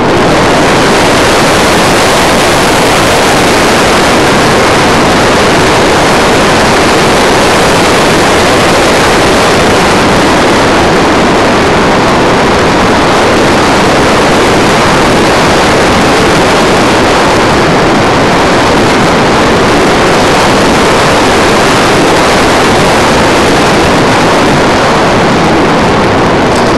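Air rushing over the onboard camera microphone of a radio-controlled model aircraft in flight: a loud, steady, even hiss with no clear engine tone.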